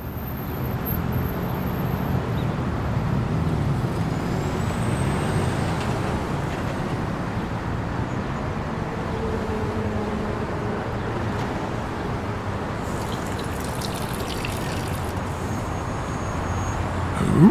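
Street traffic: a steady rumble of road vehicles going by, with engine noise strongest in the first few seconds. A short rising sound comes at the very end.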